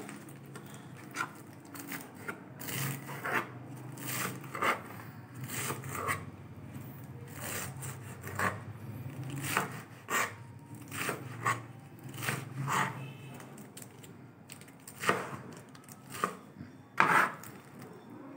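Chef's knife chopping fresh spinach on a plastic cutting board: sharp, uneven strikes of the blade through the leaves onto the board, about one or two a second with short pauses, the loudest strikes near the end.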